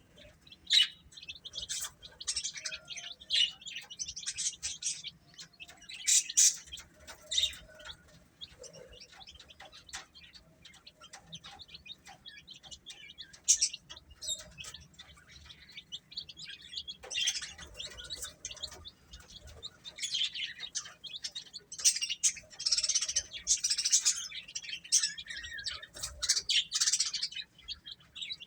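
Baby chicks peeping: many shrill, high chirps overlapping in busy clusters, thinning out for a while in the middle before picking up again.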